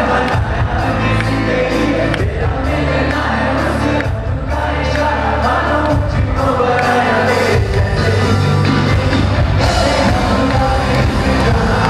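Pop music with a steady beat, strong bass and a singing voice.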